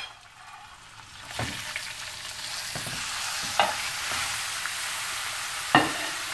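Raw ground beef and longaniza hitting hot oil in a frying pan, starting to sizzle about a second in and then holding a steady sizzle. Three sharp clinks of a metal spoon come as the meat is scraped off a plate into the pan.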